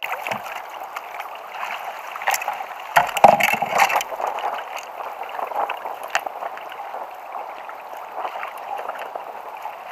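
Sea water splashing and lapping against a fishing kayak, with a few sharp knocks on the boat, loudest in a cluster about three to four seconds in.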